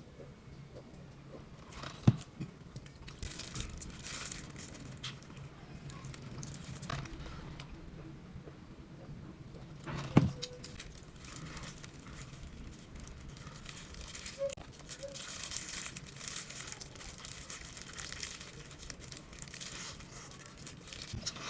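Eating sounds: many short clicks and noisy rustles of food being handled and chewed, with two sharp knocks, about two seconds in and about ten seconds in.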